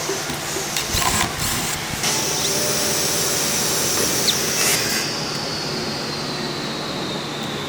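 A power tool's motor running with a high whine, which starts falling slowly in pitch about five seconds in as the machine winds down.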